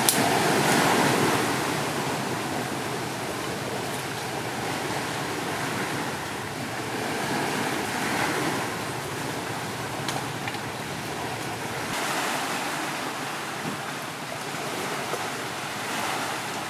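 Sea waves washing steadily onto a rocky shore, with a few faint clicks scattered through.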